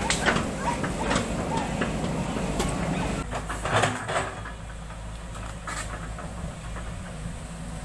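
Foton crawler excavator's diesel engine running while its steel tracks clank and rattle as it moves. About three seconds in the sound changes suddenly to a quieter, steady engine note with a few knocks from the bucket in the soil.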